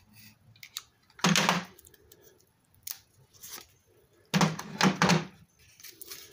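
Handling knocks of a steel torque wrench and socket against a hard plastic case: one knock about a second in, then a short run of clunks about four seconds in, with small clicks between.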